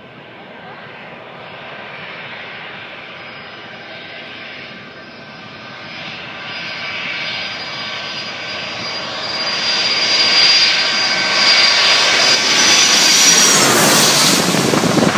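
Boeing 757-200 jet airliner on landing approach passing low overhead: the whine and rush of its twin turbofan engines grow steadily louder, and the whining tones drop in pitch as it passes over near the end.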